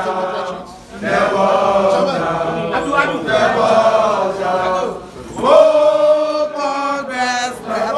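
A group of people chanting together in unison, in long sung phrases with short breaks about a second in and again around five seconds in.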